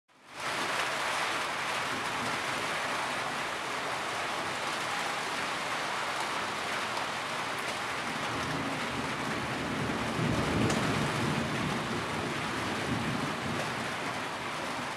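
Heavy rain pouring down steadily, cutting in abruptly just after the start. A low rumble swells briefly about ten seconds in.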